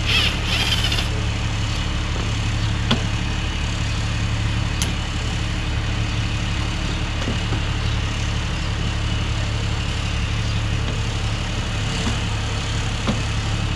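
A steady low mechanical hum, with a brief whirring burst at the very start and a few light clicks as the lawn tractor's throttle cable and lever are worked by hand.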